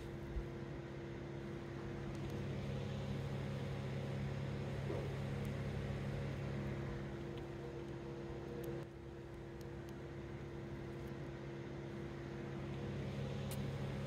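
Steady low mechanical hum made of several even tones, with its middle tone dropping out for a few seconds near the start and again near the end. A few faint clicks.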